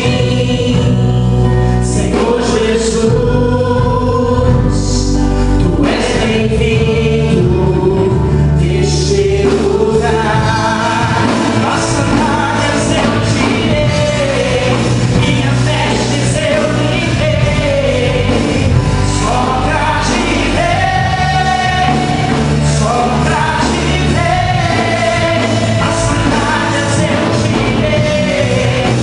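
Gospel worship band performing with sung vocals, the singers carrying the melody over a steady bass. The accompaniment grows fuller about ten seconds in.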